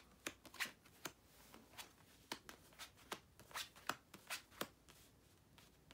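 Tarot cards being flipped face up and laid down on a cloth-covered table: a dozen or so faint, short card snaps, mostly in the first four and a half seconds.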